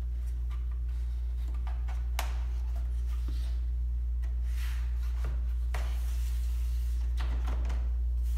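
Weather stripping being slid and pressed by hand into a window jamb track, with faint rubbing and a few light clicks, over a steady low hum.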